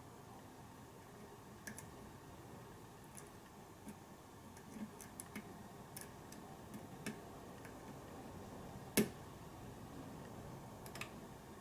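Faint, irregular small metallic clicks and ticks of a hook pick and tension wrench working the pins of a pin-tumbler lock, with one sharper click about nine seconds in.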